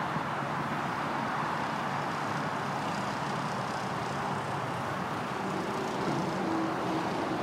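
Crane engines running steadily as two cranes hold a boat in their slings. A faint higher whine rises over the hum about six seconds in.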